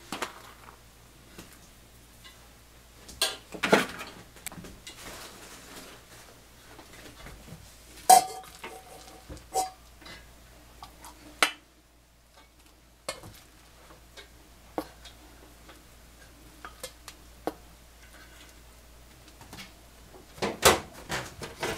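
Kitchen clatter of dishes and utensils: stainless steel bowls knocking and clinking, one clink ringing briefly about a third of the way in. Later a plastic rice paddle scrapes and taps in a clay rice pot, with a louder cluster of knocks near the end.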